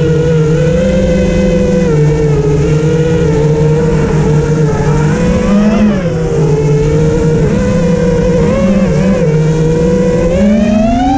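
A vehicle engine running under varying throttle, its pitch shifting up and down in small steps, then rising steadily near the end as it revs up.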